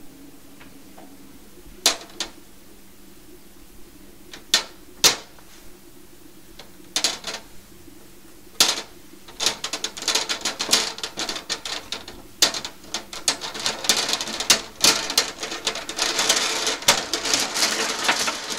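Glass-like marbles of an Abalone board game clacking against each other and the plastic hexagonal board as they are pushed: a handful of separate clicks at first, then rapid, dense clicking from about halfway that grows busier toward the end.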